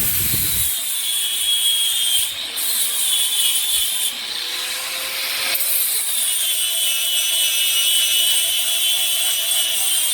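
Bosch 1375A 4-1/2-inch, 6-amp angle grinder with an abrasive disc grinding down a steel weld, its motor whine and the disc hissing on the metal. The whine sags a little under load and briefly lifts off twice, around two and four seconds in.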